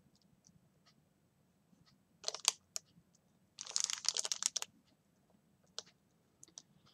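Clear plastic stamp packaging crinkling as the packs are picked up and shuffled: a short crinkle a little over two seconds in, a longer crackling rustle around four seconds, and a few light clicks of plastic between.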